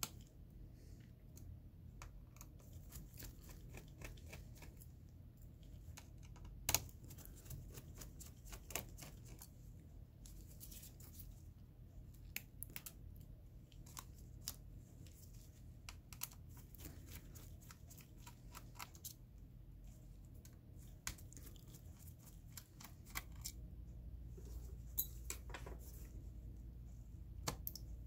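Faint, scattered small clicks, taps and scrapes of a small screwdriver and gloved hands on the metal and plastic parts of a laptop's 2.5-inch hard drive bay, with one sharper click about seven seconds in.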